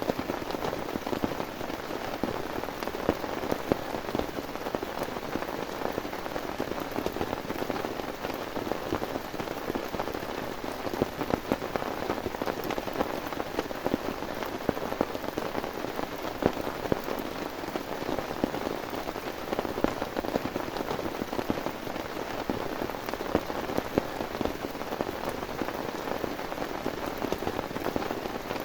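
Heavy rain falling steadily, a dense patter of drops striking a surface close by, with frequent sharper single drop hits.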